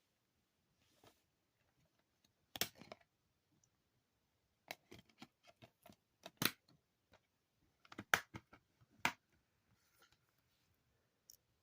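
Irregular sharp clicks and short scratchy rustles of DVD cases and their plastic packaging being handled, in loose clusters with quiet gaps between.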